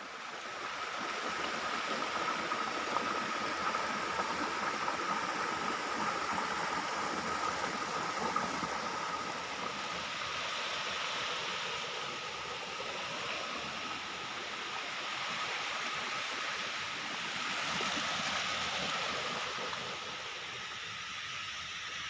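A small forest stream running and splashing over rocks in little cascades, a steady rushing water sound, with a faint steady thin tone underneath.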